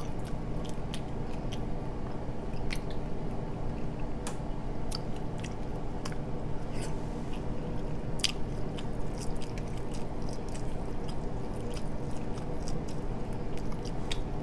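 Close-miked chewing of buttered king crab meat: soft wet mouth smacks and clicks at an uneven pace, over a steady low hum.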